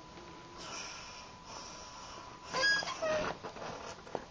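A person's voice, not in words: faint breathy sounds, then a brief high-pitched vocal noise about two and a half seconds in and a shorter one just after.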